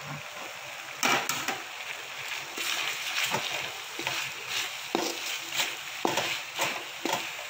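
Shredded cabbage and sliced bell peppers frying in a wok with a steady sizzle. A wooden spatula stirs and scrapes them round the pan in irregular strokes, starting about a second in.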